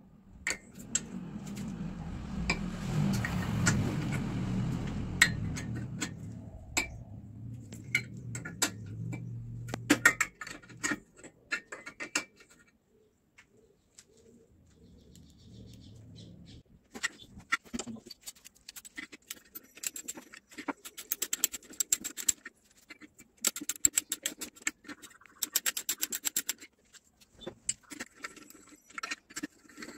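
Metal tool handling with dull clatter for about the first ten seconds, then a ratchet wrench clicking in quick runs as the cylinder head nuts are undone.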